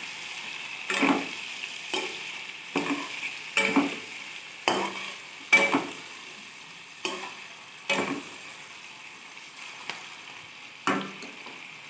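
Chicken pieces frying in oil in a non-stick pan, a steady sizzle, with a spatula stirring and scraping against the pan in irregular strokes about every second. The strokes thin out after the middle, with one last scrape near the end. Red chilli powder has just gone in with the chicken.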